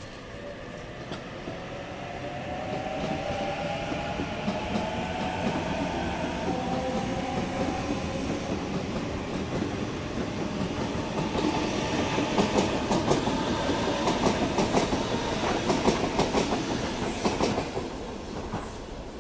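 Sydney Trains Waratah A-set electric train departing, its traction motors whining and rising steadily in pitch as it gathers speed. From about the middle on, its wheels clack loudly on the track, louder still for several seconds, then fade near the end.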